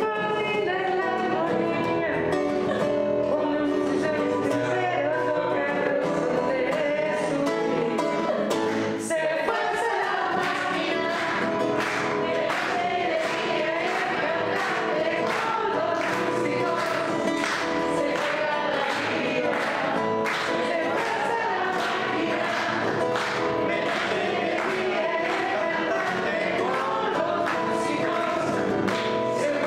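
A woman singing, with a man's voice joining in, over a rhythmically strummed acoustic guitar; the strumming grows sharper about nine seconds in.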